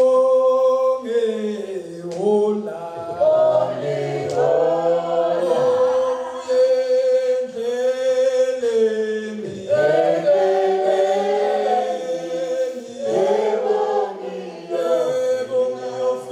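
A group of men's and women's voices singing a hymn a cappella in harmony, led by a man's voice, in the style of a South African Zionist church hymn. The chords are held in phrases a few seconds long, with short breaks between them.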